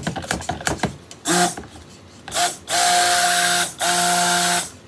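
A stick blender is pulsed in cold process soap batter in a plastic pitcher: two brief bursts, then two of about a second each, with a steady motor hum and whirring hiss. Before the pulses, the blender head is stirred by hand and knocks lightly against the pitcher. The pulsing brings the lye and oils to emulsion.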